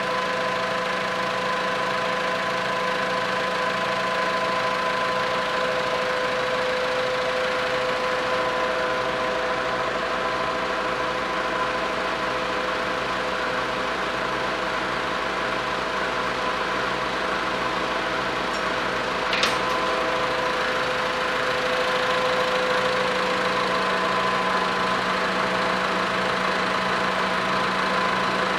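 A machine running steadily, a hum of several constant tones with a faint regular pulse underneath, and one short click about two-thirds of the way through.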